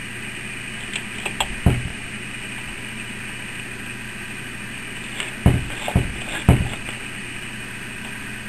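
A steady low hum with a few short knocks and low thumps: one near two seconds in, then three in quick succession in the second half.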